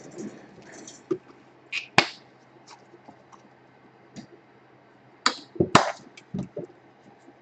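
Scattered sharp clicks and light knocks: a single one about two seconds in, then a quick cluster of several a little past the middle.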